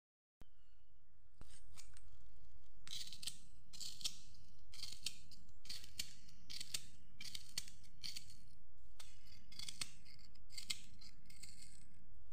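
Knife slicing crisp, juicy bilimbi fruit into thin rounds held in the hand, a short crisp crunch with each cut, about one and a half cuts a second, starting about a second and a half in.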